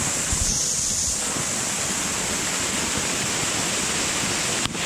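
Steady rush of a waterfall pouring down a rock face into a pool. The sound drops out briefly just before the end.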